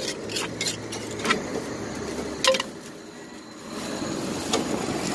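A few sharp clinks of a spoon against a clay mortar as papaya salad is scooped out into a plastic bag, over a steady low rumble of vehicle traffic.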